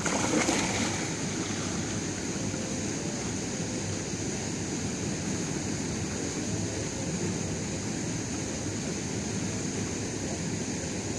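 Splashing of feet wading into shallow lake water, loudest in the first second, then a steady rushing noise with a constant high hiss.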